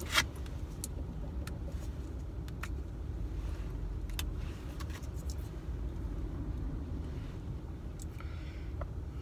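Steady low rumble inside a car, with light clicks of plastic takeout containers being handled; the sharpest click comes just after the start.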